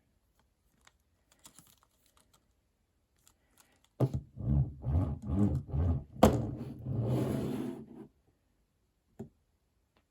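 Die-cast toy monster trucks and their plastic and cardboard packaging being handled on a table. A few faint clicks come first, then about four seconds of clattering and rustling with one sharp click in the middle.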